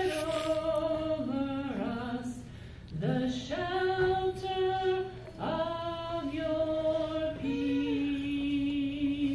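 A cantor singing solo and unaccompanied, in slow phrases of long held notes, with fresh phrases starting about three seconds in and again about five and a half seconds in.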